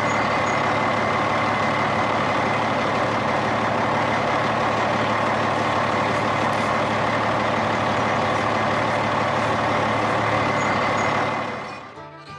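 Steady truck engine running, fading in at the start and fading out near the end.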